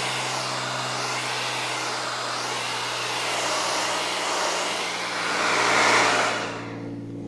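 Handheld hair dryer blowing steadily, growing louder about six seconds in, then switched off near the end.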